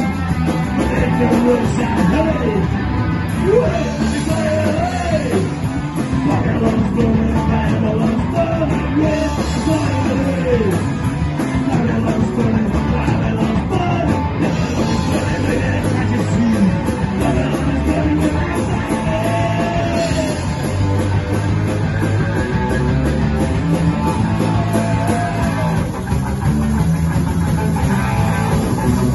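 Live punk rock band playing: a sung lead vocal over electric guitar, bass and a drum kit, loud and continuous.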